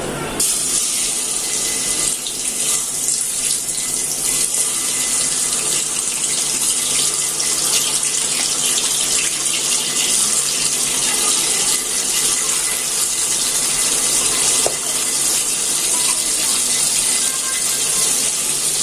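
Water running steadily from a kitchen tap into a sink. It comes on abruptly about half a second in.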